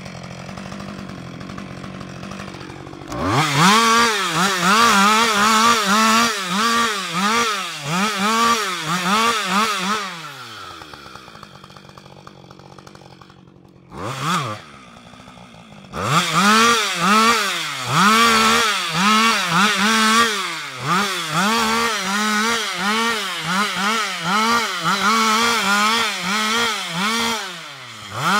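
Husqvarna 560XP two-stroke chainsaw limbing a felled tree. It idles, then revs in quick short bursts as it cuts off one branch after another. Near the middle it drops back to idle for a few seconds with one brief blip, then the quick bursts start again.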